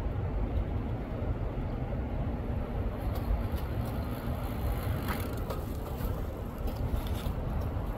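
Steady low outdoor rumble, with a few faint clicks in the second half.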